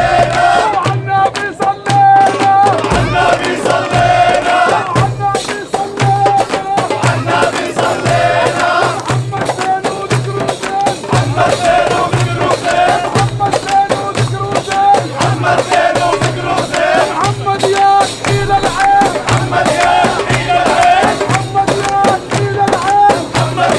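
Arab zaffa music: large double-headed tabl drums beating a steady rhythm with riq tambourines jingling, under a held drone and a chanted melody.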